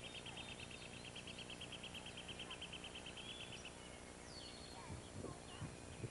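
Faint outdoor birdsong: an even, high trill of about ten notes a second that stops a little past halfway, then a few short scattered chirps. Rustling footsteps in grass and leaves start near the end.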